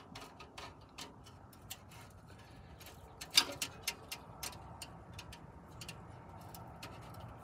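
Hand tool clicking and scraping against the rusted exhaust pipe of a 2005 Honda Odyssey: irregular light ticks, with one sharper metal clink about three and a half seconds in.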